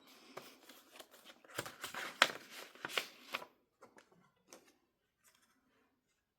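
Album contents being handled by hand: rustling with several sharp clicks and taps, loudest in the middle, then a few scattered taps.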